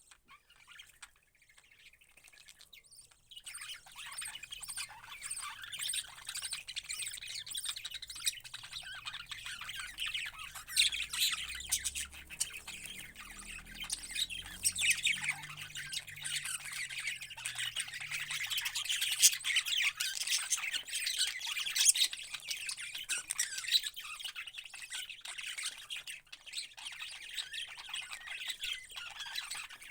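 Parrots squawking and chattering, many rapid overlapping calls that set in about three seconds in and carry on without a break.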